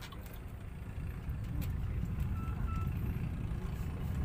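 Low, rough rumble of a vehicle on the move, growing louder about a second in, with a faint short beep partway through.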